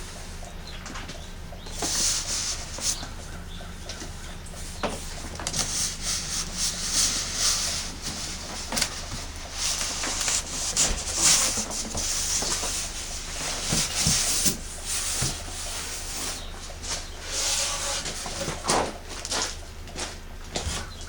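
A carton being unpacked: cardboard and packing foam rustling, scraping and sliding in irregular swells, with a few sharp knocks.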